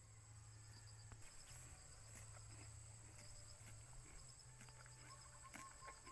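Near silence: a faint steady high-pitched drone of insects, with a low hum and a few faint scattered ticks.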